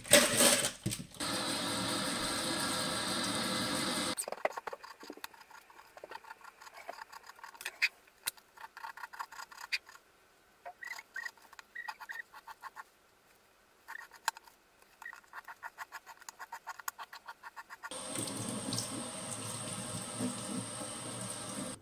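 Kitchen tap running into a stainless steel sink for about four seconds. Then comes a long stretch of irregular clicks and taps as a knife scores raw chicken breasts on a wooden chopping board. The tap runs again for the last few seconds while the knife is rinsed.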